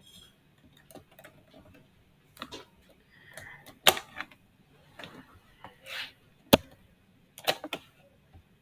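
Computer keyboard keystrokes and mouse clicks: a string of separate, irregularly spaced clacks, with the loudest about four and six and a half seconds in.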